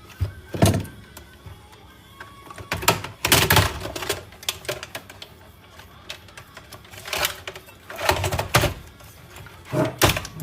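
Clanks and rattles of metal computer parts being handled and pulled apart, in several separate bursts.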